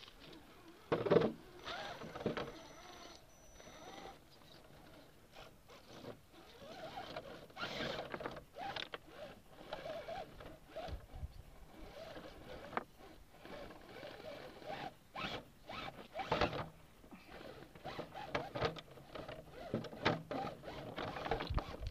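Axial SCX10 RC rock crawler climbing over boulders: its electric motor and gears whir in short, irregular bursts as the throttle is worked, with tyres and chassis clicking and knocking on the rock, loudest about a second in.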